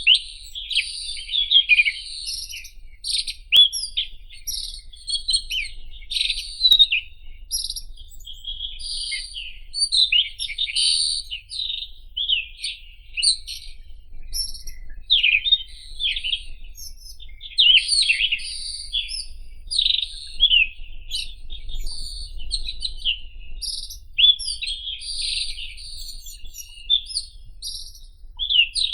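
White-throated robin singing a continuous, fast-running song of short, varied notes with very high notes mixed in, barely pausing.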